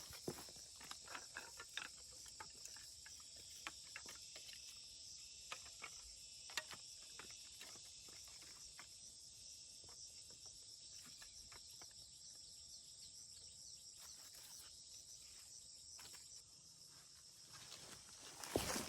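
A steady, faint, high-pitched insect chorus with scattered soft clicks and rustles, most of them in the first half. A louder rustling noise comes in just before the end.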